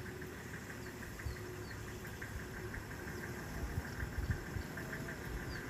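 A vehicle engine idling steadily, with a few faint high chirps over it.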